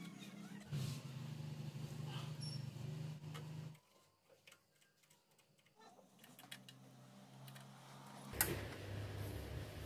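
Faint clicks and knocks of hands working on a stripped-down printer's metal frame and parts, over a low steady hum that drops out for about two seconds in the middle. The loudest is a single knock near the end.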